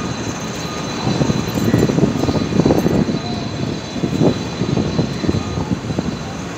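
A steady mechanical drone with uneven low rumbling underneath.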